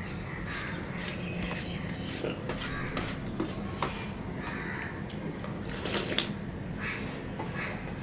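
Fingers mixing and scooping rice with thin lentil dal in a steel plate: wet squelching and dripping with light scrapes against the metal, louder about six seconds in. A steady low hum runs underneath.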